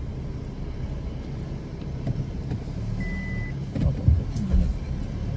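Car driving along a road: steady low rumble of engine and tyres, with one short high beep about three seconds in and a few low thumps a second later.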